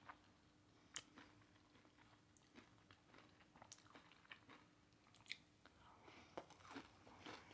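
Faint close-miked chewing of hot Cheeto-crusted fried pickles: soft scattered mouth clicks and crunches, sparse at first and coming more often near the end.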